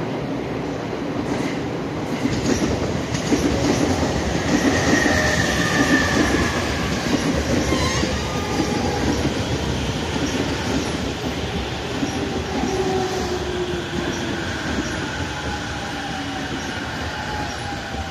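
A JR East E231-0 series commuter EMU pulls into the platform and brakes to a stop, its wheels rumbling on the rails. Its VVVF inverter and traction motor whine falls in pitch as it slows, louder as it passes close and easing off near the end.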